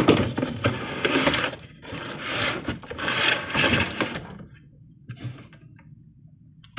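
A product box being handled and turned close to the microphone: rubbing and scraping with small knocks for about four seconds, then it goes quiet.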